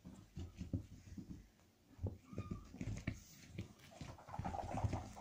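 Irregular soft thumps and rustles of a spotted kitten being handled and wriggling on a blanket, with a brief faint squeak about two seconds in.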